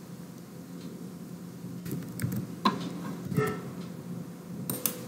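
A handful of separate computer keyboard keystrokes and clicks, spaced out over a faint steady room hum.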